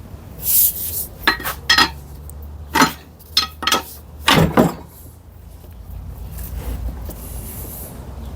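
Metal parts or tools clinking and scraping against each other: about seven sharp clinks with a short ring in the first five seconds, then only a low steady hum.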